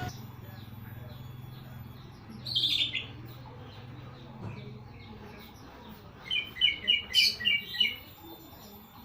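Green leafbird (cucak ijo) calling: a short burst of notes about two and a half seconds in, then a quick run of about eight clipped notes a little after six seconds in. A low steady hum underlies the first half and fades out about five seconds in.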